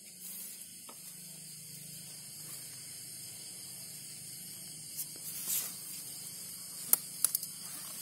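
Steady background hiss over a low steady hum, with a few sharp clicks in the second half and a short hiss about five and a half seconds in.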